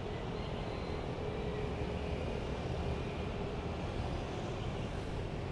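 Steady low background rumble with a faint steady hum.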